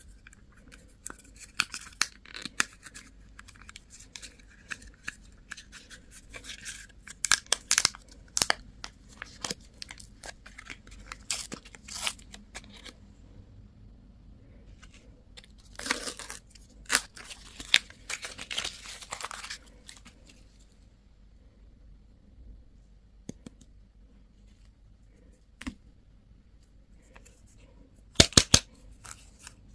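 Candy packaging being torn open and crinkled, in bursts of crackling with sharp clicks. It goes quiet for several seconds about two-thirds through, then a quick run of loud clicks comes near the end.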